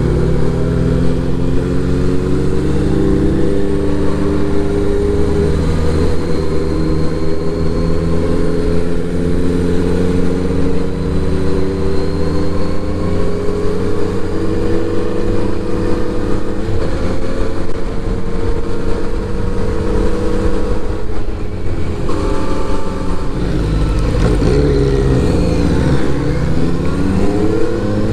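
Kawasaki inline-four motorcycle engine under way, its exhaust note rising and falling as the rider opens and eases off the throttle. Near the end the pitch drops and then climbs again.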